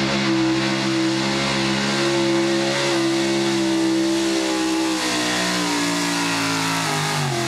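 Pro Stock 4x4 pulling truck's engine running flat out under load while dragging a weight-transfer sled, holding a steady high pitch, then winding down in pitch over the last couple of seconds as the pull ends.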